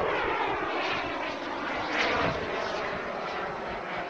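Turbine engine of a Comp-ARF BAE Hawk radio-controlled model jet in flight, a steady jet rush and whine whose pitch slides slightly downward as the model passes.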